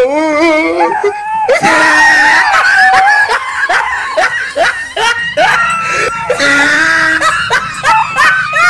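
Loud screaming with a wavering pitch, then a fast run of short, sharp cries and laughter, layered on as comic sound effects.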